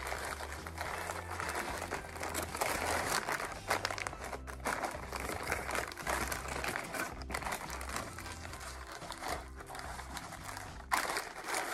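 Paper sandwich wrapper crinkling and rustling as it is pulled open by hand.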